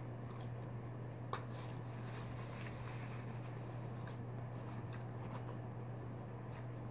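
Quiet table handling noises: a plastic fork clicking lightly against a plastic takeout tray and paper napkins rustling, a few faint clicks scattered through, the sharpest about a second in, over a steady low hum.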